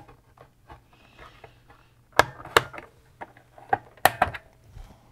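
Plastic case of a TRS-80 Model 100 being pried apart with a plastic spudger: scattered sharp plastic clicks and snaps as the case tabs are worked loose. The loudest come as two pairs, about two seconds in and about four seconds in.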